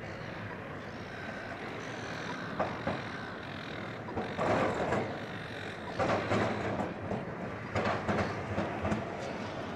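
Melbourne tram rolling along its track, its wheels clattering over the rails in a series of irregular bursts, the loudest about halfway through.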